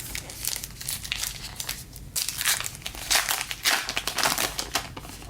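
Plastic wrapper of a trading-card pack crinkling in the hands, in irregular rustles that grow louder about two seconds in as the pack is opened.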